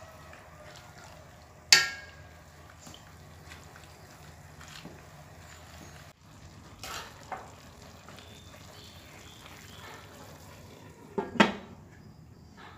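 A metal ladle stirs a stainless steel wok of simmering vegetables. It strikes the pan with a sharp ringing clink about two seconds in and lighter clinks around seven seconds. Near the end a glass lid is set down on the wok with a loud double clank.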